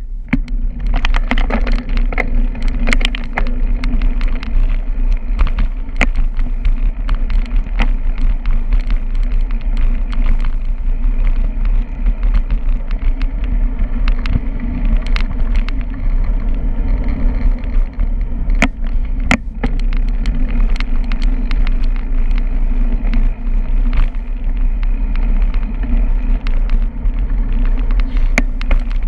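Steady rumble of wind and road vibration picked up by a handlebar-mounted camera on a moving bicycle, with scattered sharp knocks and rattles.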